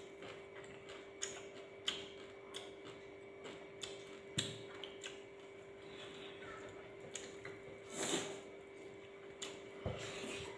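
Quiet eating-at-the-table sounds: scattered light clicks, taps and rustles of hands picking through food on a banana leaf and in bowls, with a slightly louder rustle about eight seconds in, over a faint steady hum.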